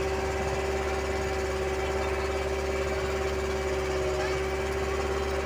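Engine of a small wooden boat running steadily under way, holding one constant pitch.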